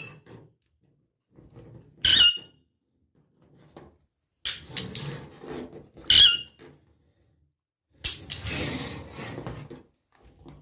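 Pet parrot giving short, sharp, high-pitched squawks, twice, about 2 and 6 seconds in, with rustling noises between them.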